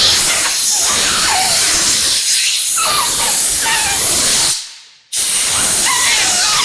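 Compressed air from a blow gun forced under a rubber Renthal road race grip, hissing loudly with a wavering squeal as the air escapes past the rubber, like cats being killed. It is floating the grip onto the handlebar. The blast stops about four and a half seconds in and starts again half a second later.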